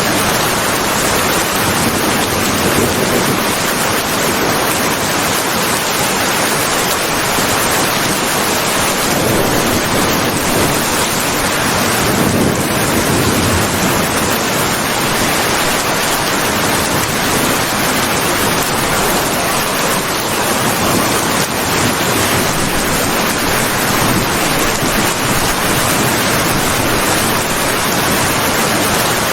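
Steady rain falling, an even dense hiss with slight swells and no break.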